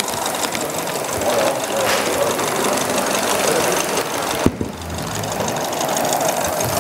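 Large-scale live-steam model locomotive running with its train on a garden-railway layout, a steady mechanical running noise of its steam exhaust and wheels on the rails. There is one sharp click about four and a half seconds in.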